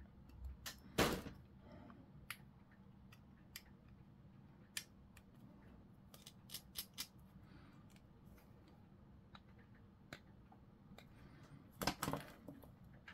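Hobby sprue cutters snipping excess plastic off a small miniature chain part, one sharp snip about a second in. Scattered light clicks and taps follow as the plastic parts and tools are handled, with a short cluster of clicks near the end.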